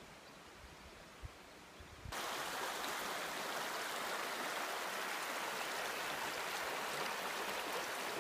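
A stream running steadily, coming in abruptly about two seconds in; before that only faint outdoor quiet with one soft knock.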